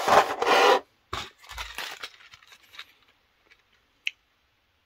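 Clear plastic blister trays being picked up and handled, crinkling loudly for about a second. Scattered plastic clicks and taps follow, with one sharp click near the end.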